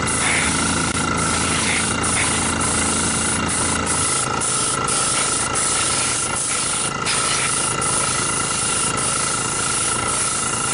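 Airbrush hissing steadily as it sprays a thin coat of Cerakote, with a low hum underneath that stops about four seconds in.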